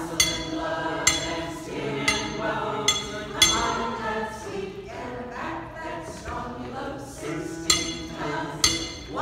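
Choir singing with sharp, ringing metal clinks struck on the beat about once a second as a mining sound effect, with a pause of a few seconds in the middle.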